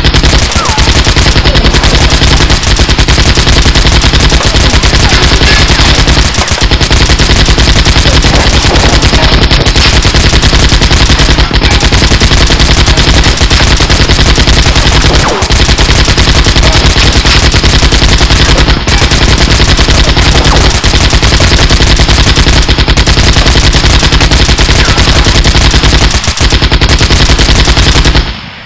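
Continuous, very loud rapid-fire machine-gun sound effects, volleys of automatic gunfire overlapping with only brief breaks, the longest break near the end.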